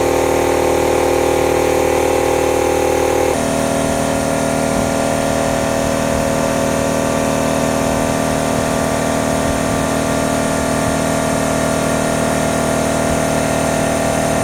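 A 100 L, 300 bar W-type three-stage scuba air compressor running with a steady mechanical hum. Its tone changes abruptly about three seconds in, then holds steady.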